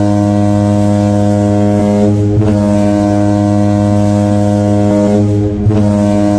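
The Halifax Mooseheads' goal horn sounding one long, steady, low blast.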